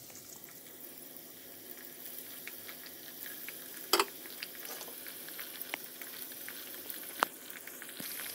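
Breaded potato-and-vegetable cutlets deep-frying in oil in a metal kadai over a low flame: a steady sizzle with scattered crackles, and two sharp pops, one about halfway and one near the end.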